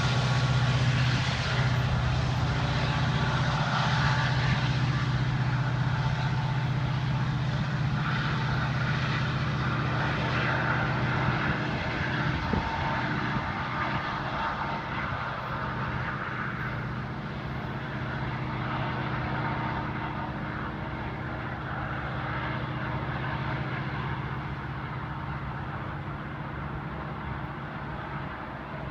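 Union Pacific diesel locomotive pulling a loaded autorack train, its engine a steady low drone with the rumble of the train behind it. The sound fades gradually as the train moves away.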